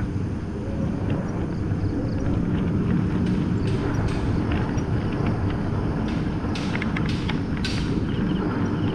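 Steady engine and road noise from the moving vehicle carrying the camera, with a few short, sharp high clicks near the end.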